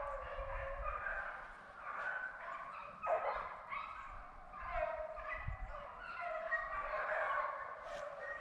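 A pack of deer hounds baying while running a deer, many voices overlapping without a break.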